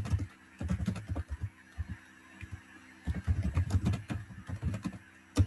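Computer keyboard typing: two quick runs of key clicks with a short lull between them.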